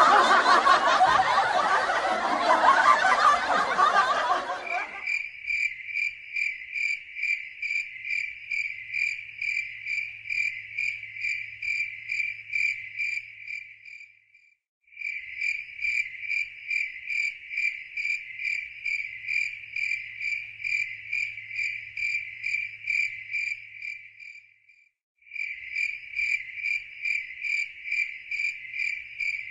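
A man's loud vocal outburst for the first four or five seconds, then crickets chirping in a steady pulse of about three chirps a second. The chirping stops briefly twice and starts again.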